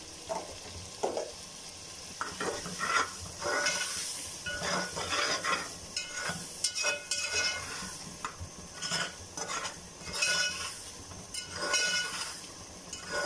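Metal slotted spatula stirring and scraping around an aluminium pot, a scrape roughly every second, over a steady sizzle of peas and masala frying in oil.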